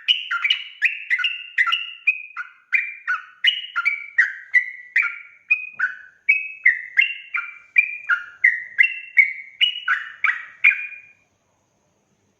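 Yellow-vented bulbul (trucuk) singing a fast, unbroken run of short liquid notes, two to three a second, that stops about eleven seconds in.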